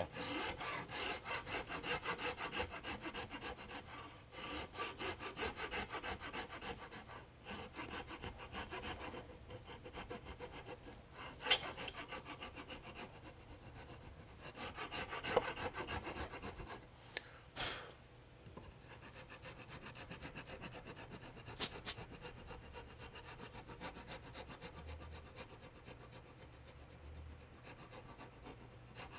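Hand file rasping back and forth on the walnut of a rifle-stock repair in a long run of short strokes. A few sharp clicks break in, the loudest about halfway through.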